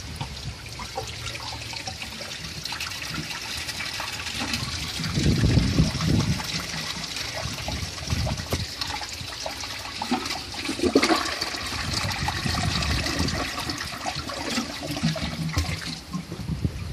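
A 1995 Gerber Mt. Vernon toilet flushing: water rushing and gurgling steadily, with a few low thuds along the way.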